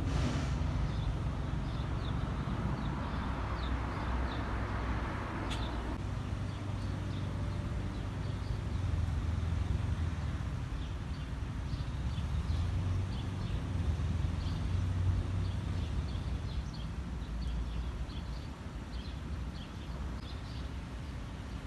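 Many short, faint, high peeps, typical of newly hatched nestlings, over a steady low rumble. A rush of noise in the first six seconds ends with a sharp click.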